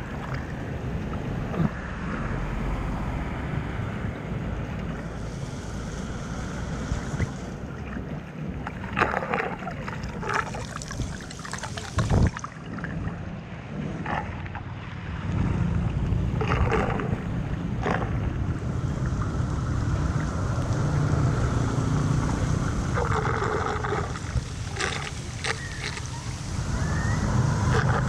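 Floodwater rushing and splashing around a drain being cleared, with a steady low rumble of flowing water and wind buffeting the microphone, broken by several short splashes and knocks.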